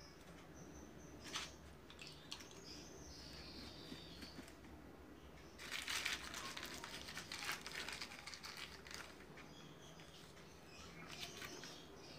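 Faint room sound with a few faint high chirps early on, then a few seconds of rustling and crinkling close to the microphone about six seconds in as the person leans in.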